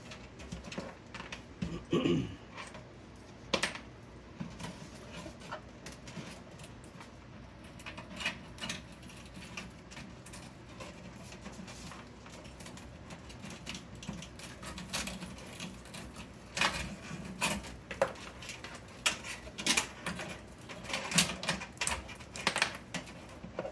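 Power supply cables and their plastic connectors being pushed through the cable-routing holes at the back of a PC case: scattered clicks, taps and rustles, growing busier in the second half.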